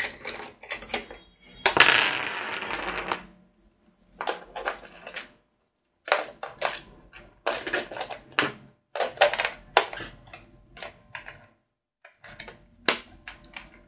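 Irregular plastic clicks, knocks and rattles from a toy quadcopter's hand-held radio controller being handled, its battery compartment opened and AA batteries fitted, with a longer scraping rustle about two seconds in.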